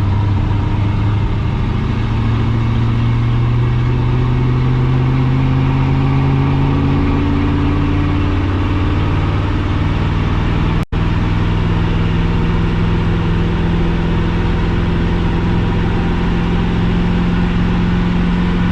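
6.0-litre Vortec V8 of a square-body Chevy K30 pickup running under load while hauling a heavy trailer. The engine note climbs slowly for about eight seconds, then holds steady, with a brief dropout in the sound about eleven seconds in.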